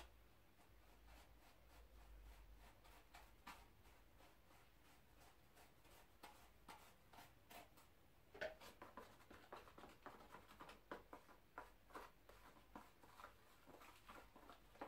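Faint scraping and tapping of a wooden stick against a folded paper trough, working ground charcoal powder out into a dish. The small scrapes and taps come sparsely at first and more often from about halfway on.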